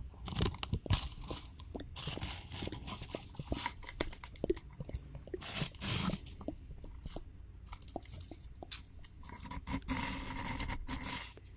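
Black cardboard lipstick packaging handled close to a microphone: crinkly crunching, rustling and scraping with scattered clicks, and a longer stretch of scratchy rustling near the end.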